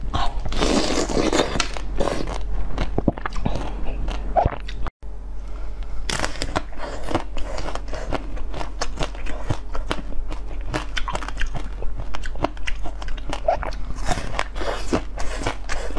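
Close-miked biting and chewing of fruit-shaped jelly sweets, with dense, irregular crisp clicks and crackles of the bites. The sound breaks off for an instant about five seconds in, then the biting and chewing carry on.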